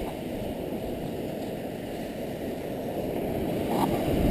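Steady low rumble of wind and breaking surf on a sandy beach, rising a little near the end.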